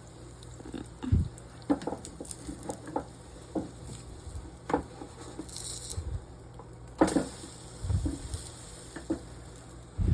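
Irregular light taps, clicks and knocks of kitchen utensils and cookware being handled while making pancakes, with a louder knock about seven seconds in and a brief hiss a little before it.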